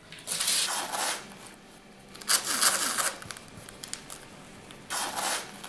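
Adhesive tape pulled off a roll in three separate strips a couple of seconds apart, each pull a noisy tearing sound lasting under a second.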